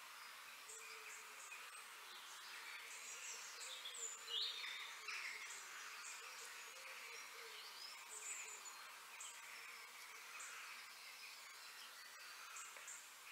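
Outdoor garden ambience: birds chirping and whistling in short, scattered calls over a faint, steady hum of insects. The loudest call comes about four seconds in.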